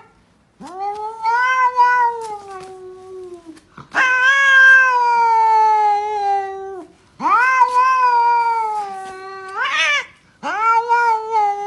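Domestic cat yowling: four long, drawn-out meows of about three seconds each, each rising quickly at the start and then sliding slowly down in pitch.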